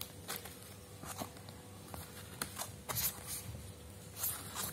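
Light rustles and taps of a folded paper sticker booklet being unfolded and handled over a cardboard box: a few short, scattered sounds.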